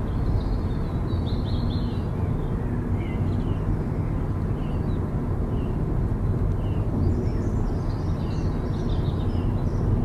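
Steady low rumble of a car driving along a highway, heard from inside the car, with faint high chirps on top that cluster about a second in and again around seven to nine seconds in.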